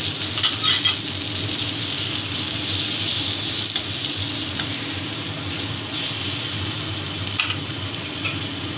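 Onion, tomato and ground spices sizzling steadily in hot oil in a kadai as the masala is fried down, with a wooden spatula scraping and knocking against the pan while stirring; a few sharper scrapes come in the first second and again near the end, over a steady low hum.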